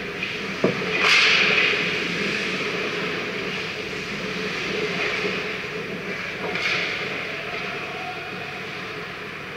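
Ice hockey skate blades scraping and spraying on the ice near the goal, loudest about a second in and again near seven seconds, with a short sharp knock of stick or puck just before the first scrape. Under it runs a steady arena hum.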